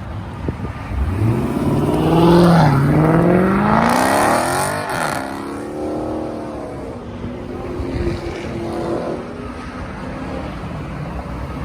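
Muscle car accelerating hard at full throttle, its engine note rising steeply in pitch and loudest between about two and four seconds in, then dropping off as it passes and fades away.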